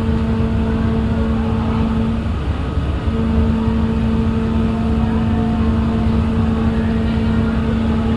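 Ferry boat's engine running steadily under way: a low rumble with a steady hum that drops out for about a second a couple of seconds in, then returns.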